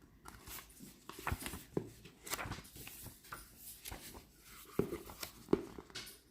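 Paper and card rustling with soft clicks and taps as a tarot deck's cards and booklet are handled, with two sharper knocks near the end.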